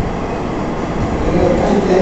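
Steady rumbling noise, with a faint voice murmuring in the second half.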